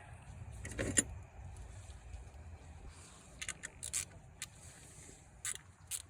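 Metal tools clinking against engine parts: one sharp clank about a second in, then a string of short, light metallic clicks and taps over the last few seconds, with a low steady rumble underneath.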